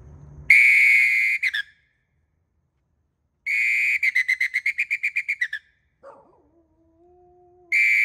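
A night watchman's whistle blown in high-pitched blasts: a short blast, then a longer one that breaks into a rapid warbling trill, then a third blast starting near the end. It is his signal to the residents that he is patrolling the neighborhood.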